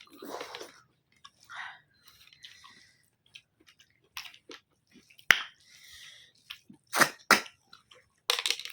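A person eating close to the microphone: soft chewing and mouth sounds, broken by a few sharp clicks, about five seconds in, twice around seven seconds and again near the end.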